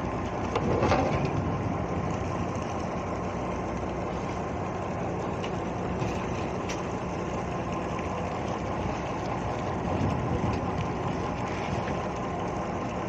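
A fishing boat's engine running steadily, a constant low drone.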